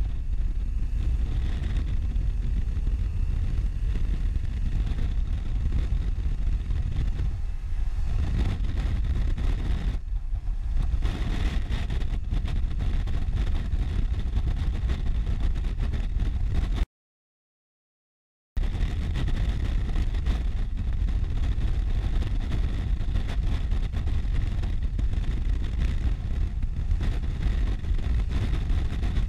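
Police motorcycle ridden at motorway speed, heard through a helmet-mounted camera as a steady rush of wind and road noise under the engine, with the engine note rising under acceleration in the first couple of seconds. The sound cuts out completely for about a second and a half past the middle.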